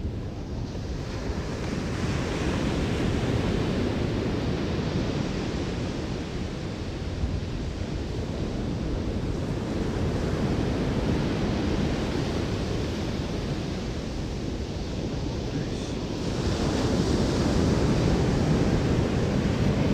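Ocean surf breaking and washing up the beach, with wind buffeting the microphone. The rush swells and fades with each wave and is loudest near the end.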